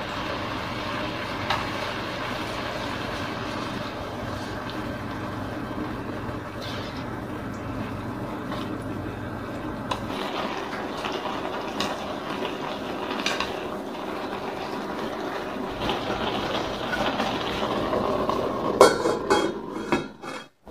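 Beef bulgogi and vegetables sizzling in a hot stainless steel pan, with wooden chopsticks clicking and scraping against the metal as the food is stirred. Near the end a few louder metallic clanks come as the stainless lid is set on the pan.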